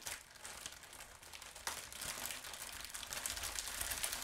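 Clear plastic bags of diamond-painting drills crinkling as they are folded and packed into a larger plastic bag, the crackling growing busier and louder about a second and a half in.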